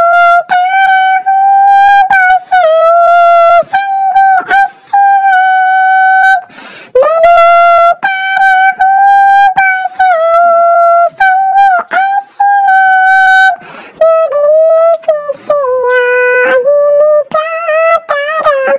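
A very high-pitched voice singing a naat, an Islamic devotional song, with no accompaniment. It holds long, wavering notes with a couple of brief breaks.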